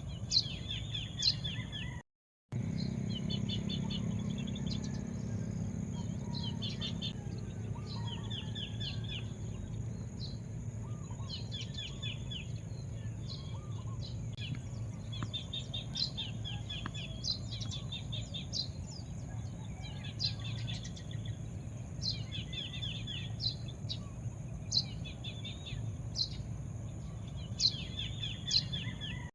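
Small birds chirping in repeated short runs of rapid notes, over a steady low rumble and a constant high whine. The sound cuts out briefly about two seconds in.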